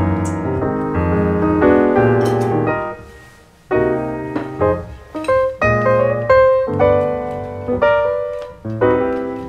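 Background piano music playing a lively run of notes, with a brief pause about three seconds in.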